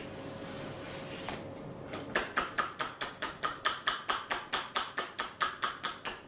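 Rapid, even hand strikes on the body, about five a second: percussive massage tapping (tapotement). It starts about two seconds in, after a soft rubbing hiss.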